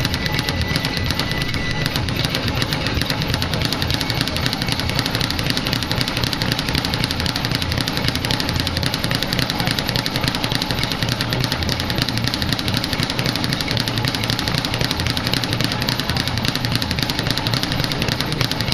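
A speed bag punched nonstop, rattling off its rebound board in a fast, unbroken drumming rhythm.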